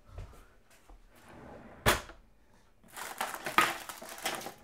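Kitchen utensils knocking and clattering as a drawer is rummaged for a rolling pin. There is one sharp knock about two seconds in, then a run of rattles and clicks near the end.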